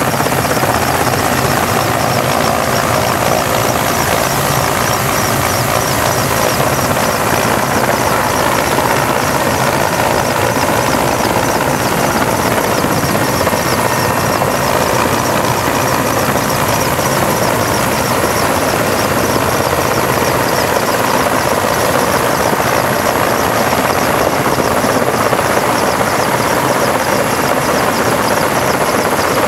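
Helicopter in flight, heard from on board: a loud, steady engine and rotor noise with a fast, even flutter in the high range.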